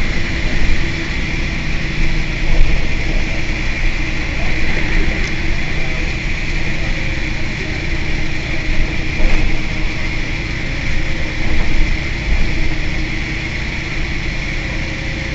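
Mercedes-Benz O 405 N city bus's rear-mounted six-cylinder diesel engine idling steadily while the bus stands at a stop, with a steady whine over the low rumble.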